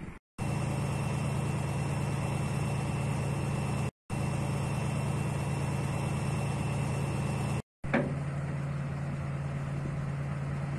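A heavy diesel engine idling steadily, with a low, even hum. It cuts to silence briefly twice. A short knock about eight seconds in is the loudest moment.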